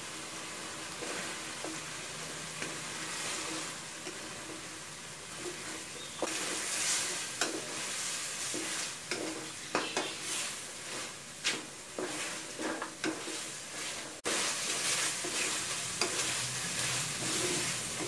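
Chicken pieces and chicken feet sizzling in green curry paste in an aluminium pot, stirred with a wooden spatula. From about six seconds in, irregular scraping strokes of the spatula against the pot come over the steady sizzle.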